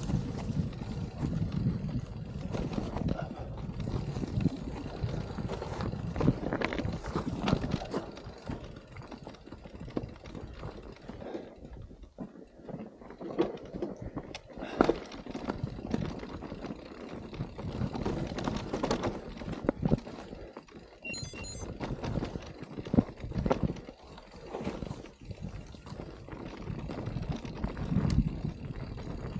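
Mountain bike being ridden over a rough trail: a continuous low rumble with irregular knocks and clatter from the tyres and frame over stones.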